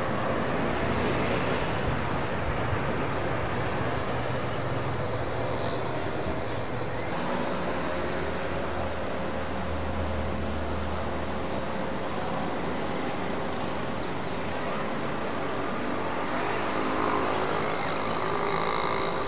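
Steady town traffic noise, with the engines of passing motor vehicles running. The sound changes abruptly about seven seconds in, and a low engine hum is heard for a few seconds after that.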